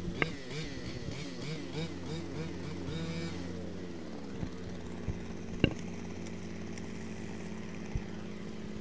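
Fifth-scale HPI Baja RC buggy's 26cc two-stroke engine revving in quick bursts as it pulls away, its pitch rising and falling, then dropping to a lower, steadier drone over a constant low hum. A few sharp knocks come through, the loudest about halfway through.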